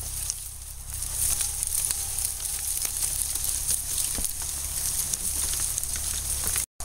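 Footsteps crunching through dry leaf litter and brush, with twigs crackling and leaves rustling over a steady low rumble. The sound cuts out abruptly for a moment near the end.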